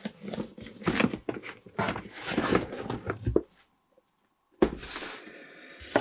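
Cardboard product boxes being shuffled and lifted inside a cardboard shipping carton: a quick run of scrapes, rubs and light knocks that stops for about a second past the midpoint, then fainter rustling.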